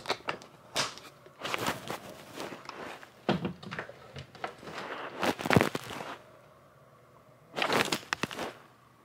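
Handling noise from a phone camera being picked up and repositioned: irregular clicks, knocks and rustles, quieter for a second or so near the end before another cluster of knocks.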